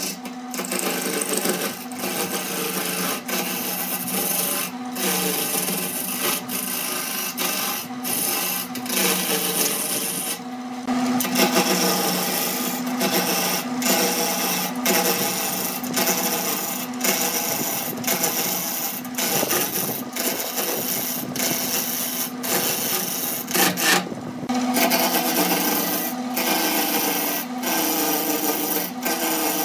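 Wood lathe running with a steady motor hum while a hand-held turning chisel cuts into the spinning wooden blank. The tool gives a rough scraping noise that comes and goes in short strokes.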